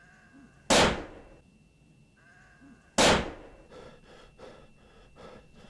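Two shotgun blasts about two seconds apart, each with a short echoing tail, the second barrel following the first from a double-barrelled shotgun. A faint bleat-like call comes just before each shot, and a run of scuffs and crunches follows the second.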